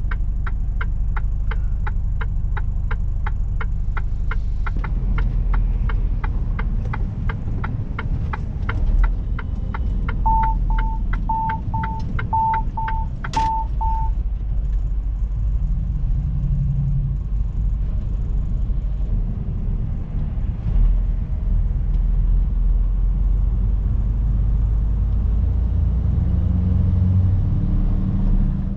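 Steady low engine and road rumble inside a Mercedes-Benz truck cab in traffic, with the turn signal ticking about twice a second for the first nine seconds or so. About ten seconds in, short high electronic beeps sound in pairs for about four seconds, with a sharp click near their end.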